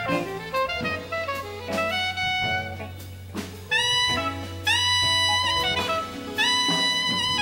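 Live jazz-fusion band: a soprano saxophone plays the melody, with several long held notes that scoop up into pitch in the second half, over electric bass and drum kit.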